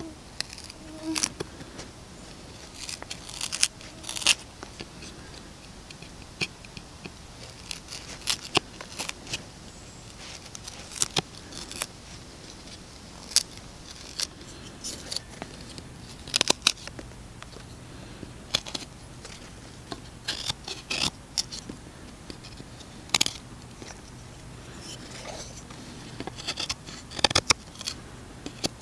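A large fixed-blade knife carving a piece of wood: short, sharp scraping cuts as shavings come off, at an irregular pace with short pauses, sometimes several in quick succession.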